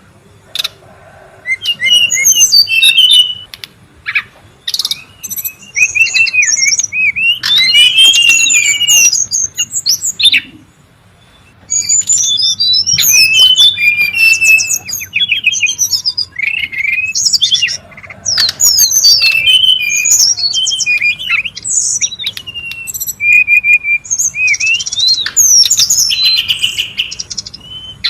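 Brown-chested jungle flycatcher (sikatan rimba dada coklat) singing and calling busily: quick, varied runs of high whistles and chirps, with short pauses between phrases.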